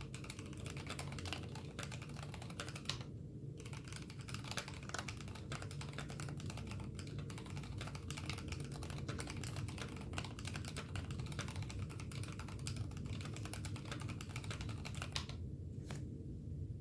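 Steady fast typing on a mechanical keyboard with lubed Kailh BOX Red linear switches in an aluminium plate, with mStone keycaps. The strokes are dense, with two brief pauses, one about three seconds in and one near the end.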